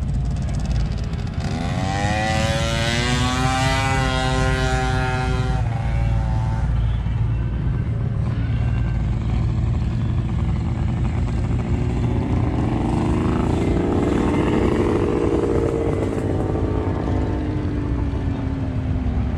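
Motorcycle engines running close by over a steady low rumble. One climbs in pitch about a second in, holds for a few seconds and cuts off. Another swells up in the second half, slowly rising then falling in pitch as it passes.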